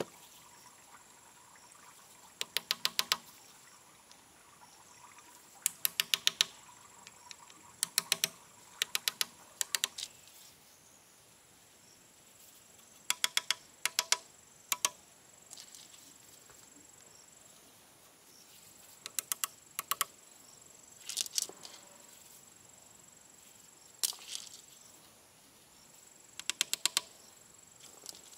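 Small river pebbles clacking against one another in short bursts of quick clicks, about ten times, as they are handled and picked from a pile for setting into mortar.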